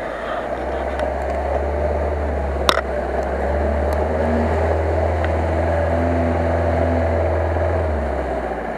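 Asia Rocsta off-roader's engine running with a steady low drone as it drives through a shallow stream, with water churning around its wheels. A brief sharp click comes about a third of the way in. The engine drone eases off near the end.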